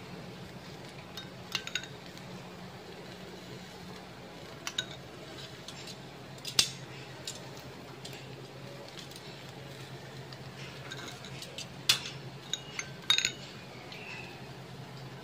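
Scattered sharp metal clinks and taps, a few with a short ring, clustered about one and a half, six and a half, and twelve to thirteen seconds in, over a faint steady low hum.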